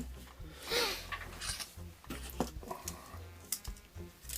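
A few light metallic clicks and one short scrape as a Gerber MP600 multi-tool is handled, over quiet background music.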